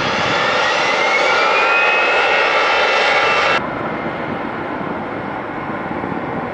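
Airliner engines running loud, with a turbine whine that rises in pitch and then levels off. About three and a half seconds in, the whine cuts off abruptly, leaving a duller, steady rumble.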